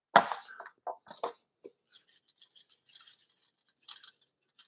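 A cauliflower steak turned over on a metal sheet pan with a sharp knock just after the start and a few light taps, then the dry, scratchy rattle of a spice shaker sprinkling seasoning over it.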